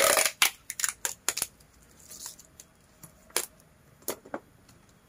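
Adhesive tape and plastic wrap being worked around a plant pot: a short tearing rip at the very start, then scattered crackles and clicks that thin out over the next few seconds.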